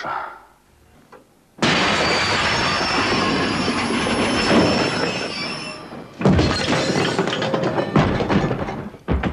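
Tram running on rails with its wheels screeching, starting suddenly about a second and a half in. After about six seconds a second loud stretch follows with rapid clattering knocks.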